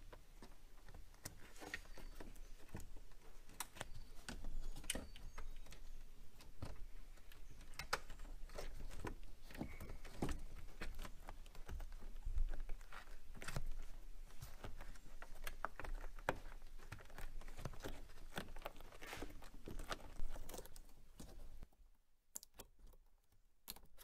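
Irregular clicks, rustles and crinkles of hand handling: a taped wiring-harness bundle being pushed through a rubber grommet and the corrugated rubber boot being worked into place. The sounds stop about two seconds before the end.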